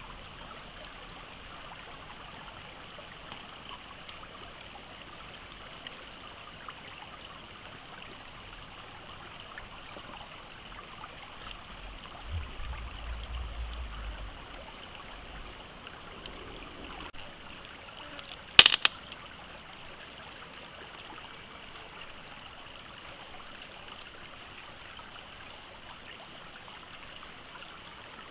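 Steady rushing of a stream, with one sharp click about two-thirds of the way in.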